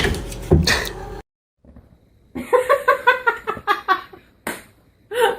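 A person laughing in a quick run of short, pitched bursts, starting about two seconds in after a brief drop to silence, with one more burst near the end.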